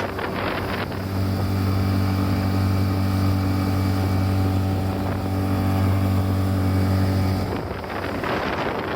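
Suzuki DF20A four-stroke outboard motor running at a steady pitch, with wind buffeting the microphone and water rushing; near the end the engine tone gives way to the noisier rush of wind and water.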